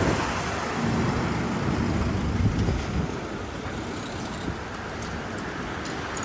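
Steady rush of road traffic noise, a little louder in the first half.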